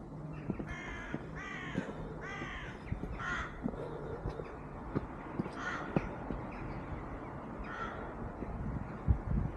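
Crows cawing: a quick run of four short calls in the first three seconds, then a few more spaced calls, over a low outdoor background.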